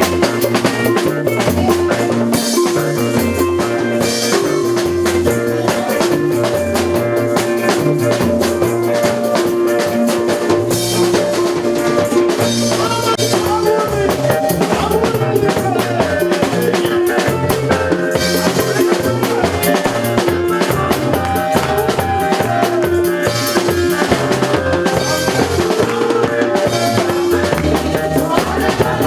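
Music with a steady drum-kit beat, bass drum and snare, over a held melody.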